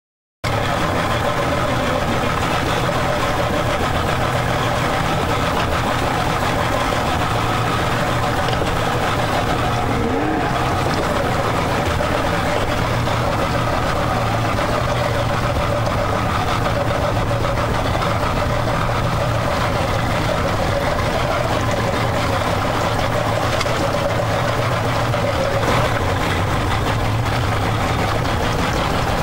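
Twin outboard engines of an Atlantic 75 lifeboat running steadily at low speed, heard close up from the stern of the boat.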